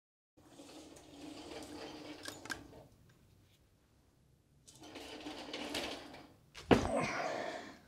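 Wheeled shop stool rolling across a concrete floor, its casters rattling and rumbling in two runs with a short silent pause between them. A sharp thump comes near the end.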